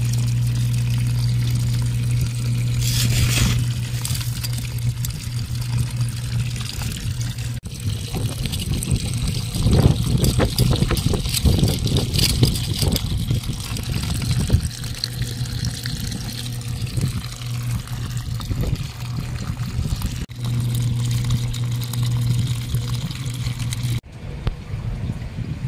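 Water pouring and trickling in an aquaponics system, over a steady low hum, with a few abrupt cuts.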